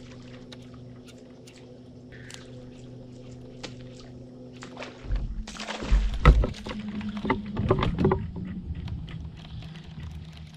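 A steady low hum for about the first five seconds, then knocks, thumps and water splashes as a walk-the-dog topwater lure is cast and worked across the surface.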